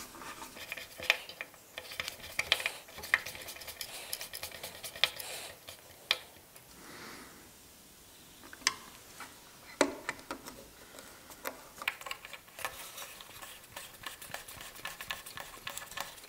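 A screw being turned in by hand with a screwdriver through a metal casement-stay fitting into a wooden window frame: irregular small clicks and scrapes of the screwdriver tip working in the screw head, with a short lull about halfway.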